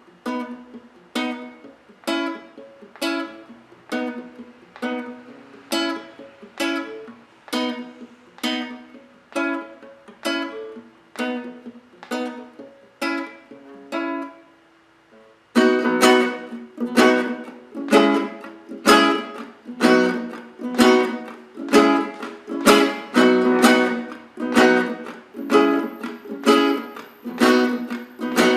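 Acoustic guitar (violão) strumming chord rhythm patterns: light, even strokes about one a second, then about halfway through a louder, fuller strumming pattern with quicker strokes.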